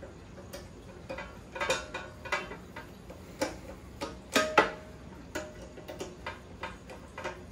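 Phillips screwdriver driving small screws into a metal stand bracket: irregular light metallic clicks and ticks, the loudest a sharp clink about four and a half seconds in with a short ring.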